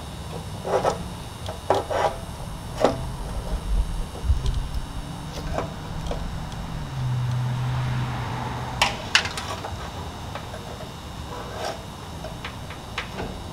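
Scattered metal clicks and light knocks from a fuel pump hanger assembly, its metal tubes and sending unit, being worked down into a fuel tank opening by hand. A low steady hum comes in about four seconds in and fades about eight and a half seconds in.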